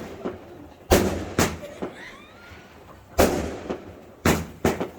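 Fireworks exploding: a string of about eight sharp bangs over five seconds, some coming in quick pairs, each with a short echoing tail.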